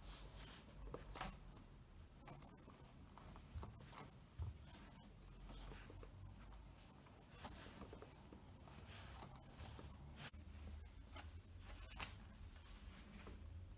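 Leg-iron chain and small padlocks clinking faintly in scattered light metallic clicks as the shackled feet shift and step; the sharpest clicks come about a second in and near the end.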